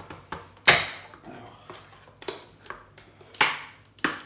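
Sharp knocks and clatter of a circuit board being worked loose from a metal electronics chassis by hand. The loudest knock comes just under a second in, with more around three and a half seconds and near the end.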